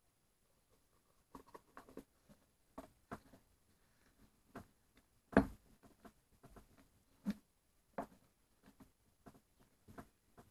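Snap-on plastic lid being pressed down onto a plastic tub: a string of irregular clicks and snaps as it seats around the rim, the loudest about five seconds in.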